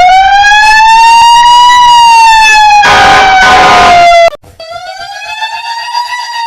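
Edited fire truck siren sound effect: a very loud wail that slowly rises and falls in pitch, with a burst of hiss over it about three seconds in. A little over four seconds in it cuts to a quieter version of the siren, slowly rising again.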